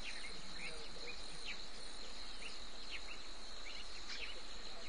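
Bush ambience: a steady, high insect drone like crickets, with short chirps scattered through it every half second or so, over a faint low hum.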